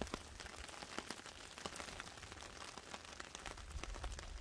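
Light rain on leaf litter: scattered drops tick irregularly, with a low rumble underneath.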